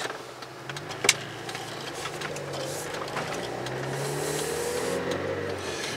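Car engine and road noise heard from inside the cabin while driving, the engine note rising gently in the second half. A single sharp click about a second in.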